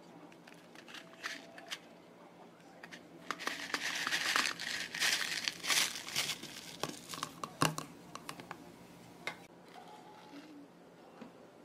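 Thin clear plastic dessert cup crinkling and crackling as it is handled, with scattered sharp clicks; loudest from about three to seven seconds in, then dying down to a few clicks.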